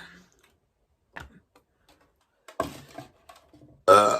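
A woman burping: a burp trails off at the start, a few faint clicks and small mouth sounds follow, and a short, loud, pitched burp comes near the end.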